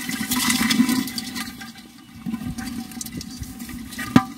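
Live mud crabs scrabbling in a plastic tub, their shells and legs giving a few sharp clicks and scrapes against it, over a rushing noise that fades after about a second and a half.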